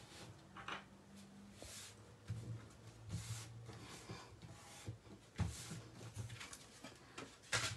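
Hands pressing and smoothing glued card stock onto a kraft card base: faint paper rubbing and rustling strokes with a few soft taps.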